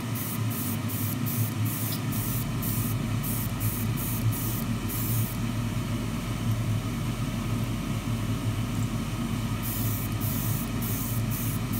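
Airbrush spraying metallic lacquer in thin mist coats: a hiss of air and paint in short trigger bursts about three a second, then held steady for about four seconds from around five seconds in, then short bursts again near the end. A steady low hum runs underneath.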